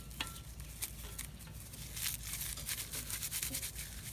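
Dry poplar bark being torn and crumbled by hand into fine tinder: a run of dry crackling and rustling that gets denser about halfway through.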